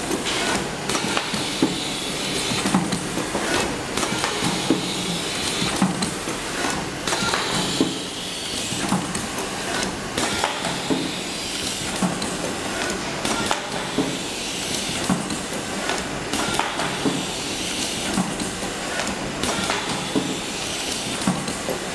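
Ultrasonic welding machine for A4 folders at work: a steady hiss with frequent irregular clicks and knocks.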